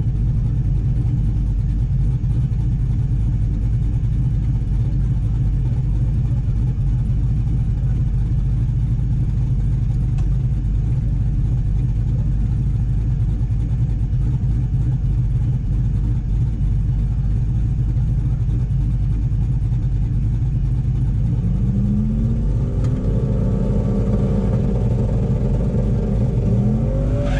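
Turbocharged 408 LS V8 in a drag-race S10 pickup idling steadily. In the last few seconds it revs up twice, the pitch climbing each time.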